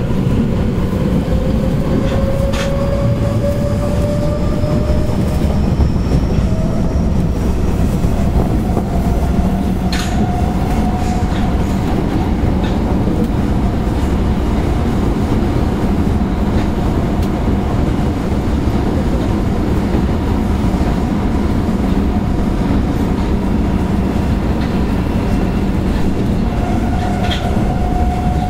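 Osaka Metro 10 series subway train running, with the IGBT inverter's motor whine rising in pitch over roughly the first ten seconds as it picks up speed, then levelling off. Under it is a steady loud rumble of wheels on rail, with a few sharp clicks from rail joints.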